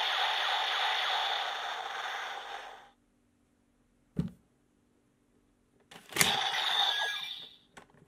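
Toy Kamen Rider Zero-One Driver belt with the Metal Cluster Hopper Progrise Key inserted, playing its electronic sound effect through its small speaker; it fades out about three seconds in. A single click follows about a second later, then another click and a short electronic sound around six seconds.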